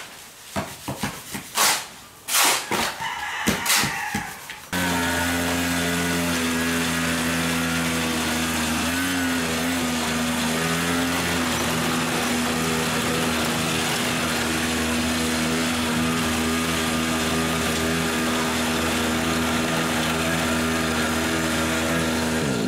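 A few seconds of hoe and shovel blades scraping and knocking through wet mortar on concrete. Then a mini pocket bike's small motor starts running steadily at an even pitch, with a brief waver in pitch early on.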